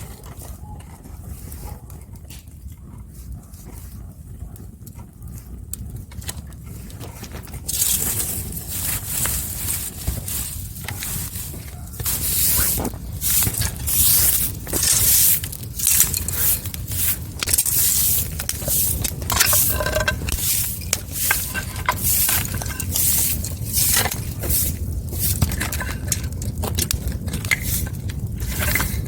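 Wood fire burning, with a steady low rumble and many sharp crackles and pops. The crackling grows louder and busier about eight seconds in, and again about twelve seconds in.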